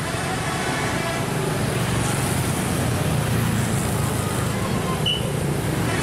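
Street traffic: motorcycles and a car passing with their engines running, a steady rumble. A short high chirp is heard about five seconds in.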